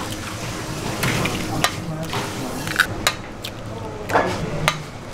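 Raw eggs being cracked against the rim of a large stainless steel pot, with about six sharp shell cracks at uneven intervals and the wet sound of egg dropping into the pool of raw egg already in the pot.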